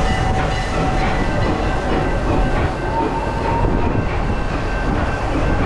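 Serengeti Express park train rolling along its track, heard from aboard its open-sided cars: a steady, loud rumble of wheels on rails.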